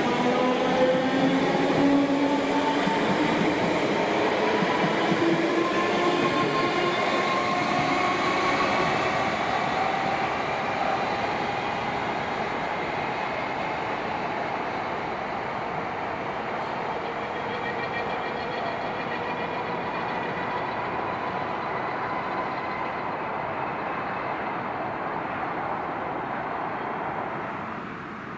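Merseyrail third-rail electric multiple unit accelerating away, its traction motor whine climbing steadily in pitch over about the first ten seconds over wheel and rail noise, then fading gradually as the train recedes.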